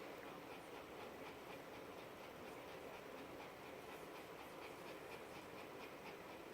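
A dog panting quickly and faintly, the short breaths coming in a quick, even rhythm over a steady low hum.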